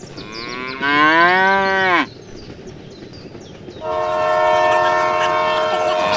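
A long mooing call with its pitch rising and then dropping away, about a second in. From about four seconds, a steady multi-note horn blast.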